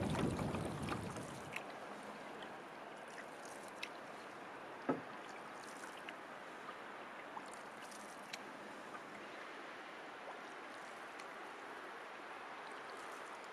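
Canoe being paddled on a lake: a steady wash of water with scattered light ticks and one clear knock about five seconds in. A low rumble of wind on the microphone dies away about a second and a half in.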